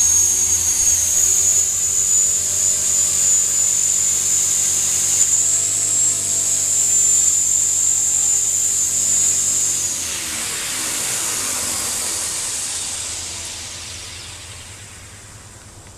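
RC model helicopter running with a high steady motor whine and rotor hum; about ten seconds in the motor cuts and the rotor winds down, falling in pitch and fading.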